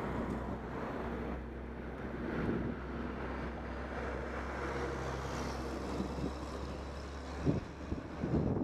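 A motor vehicle going by on the road: a steady low engine drone with tyre and air noise swelling about halfway through. The drone drops away near the end, and there is wind noise on the microphone.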